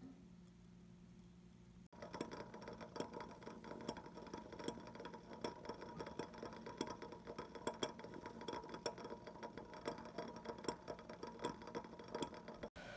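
Nitrate solution boiling in a glass beaker on a hot plate: a dense, irregular crackle of popping bubbles that starts abruptly about two seconds in, over a low steady hum.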